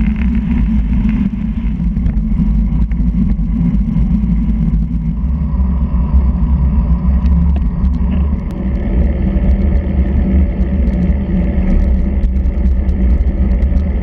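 Wind buffeting the microphone of a handlebar-mounted action camera on a moving road bike, a steady low rumble mixed with the tyres' road noise. The sound changes a little about five seconds in, with a few light clicks after.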